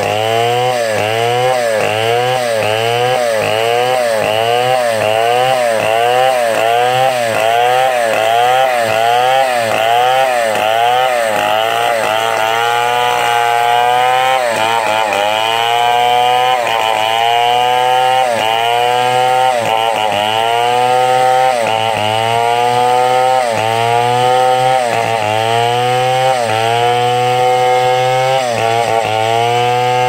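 Two-stroke Stihl chainsaw cutting through a log at high revs, its engine pitch dipping and recovering over and over as the chain bites in. The dips come about twice a second at first and slow to about once a second from about twelve seconds in.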